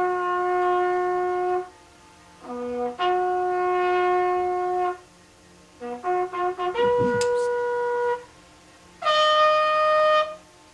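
A military bugle sounds a salute call: short quick notes lead into long held notes twice, then a run of brief notes, and a higher, loudest note is held near the end.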